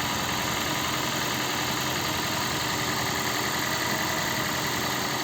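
Toyota Prius (20-series) 1.5-litre four-cylinder petrol engine idling steadily with a slight rattle. The rattle is a leftover misfire, which the mechanic puts down to the ignition coil on cylinder 1 that still needs replacing.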